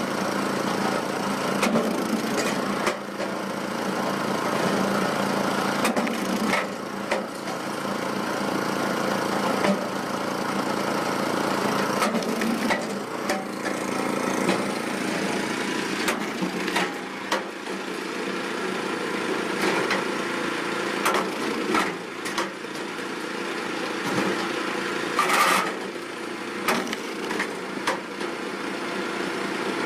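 Engine-driven firewood machine running steadily, with repeated cracks and knocks of wood being cut and split, and a louder burst near the end.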